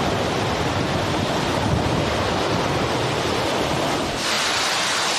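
Surf washing on a beach, a steady rushing noise, with wind buffeting the microphone; about four seconds in the low rumble eases and a brighter hiss takes over.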